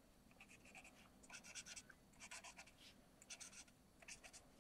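Faint scratching of a marker's fine tip on cardstock: quick little strokes in short bursts about once a second, colouring in small areas.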